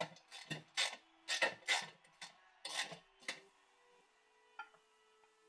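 Wrench loosening the 10 mm bolt under a golf cart's front cowl: about ten short rasping strokes over the first three and a half seconds, then one faint click a second later.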